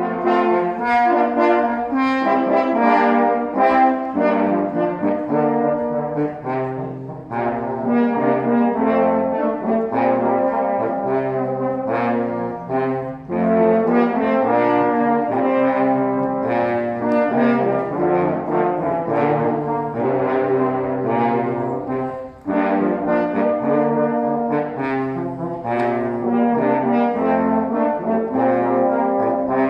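French horn ensemble playing music in several-part harmony, moving through held chords, with brief breaks between phrases three times.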